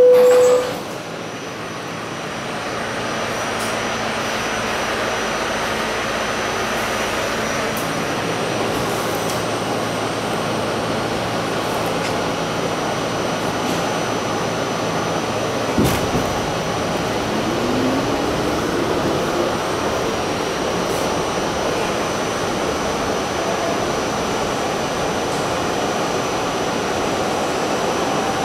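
Inside an R68 subway car: the end of the two-note descending door chime, then the steady running noise and hum of the car as the train pulls out of the station. About sixteen seconds in there is a single knock, followed by a short rising whine as the traction motors pick up speed.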